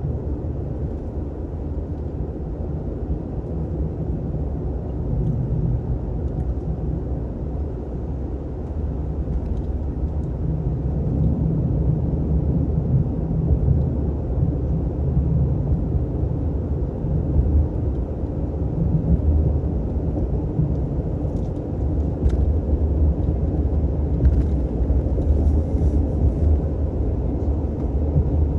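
Steady low rumble of engine and road noise inside the cab of a Ram 3500 pickup driving along at road speed.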